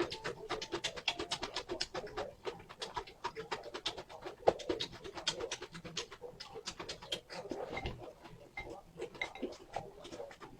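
Close-miked mouth sounds of a person eating noodles: chewing, with a rapid, irregular run of small wet smacks and clicks.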